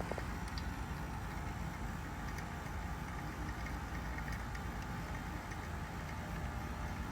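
2025 Carrier Comfort A2L heat pump outdoor unit running steadily during a defrost cycle: a constant mechanical hum with a faint steady tone in it.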